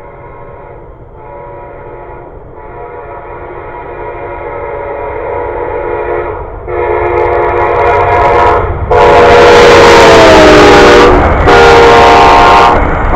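Amtrak passenger train's locomotive horn sounding a series of blasts for the grade crossing as it approaches, growing steadily louder. Its pitch drops as the locomotive passes about nine seconds in, and the loud noise of the passing cars on the rails then joins the horn.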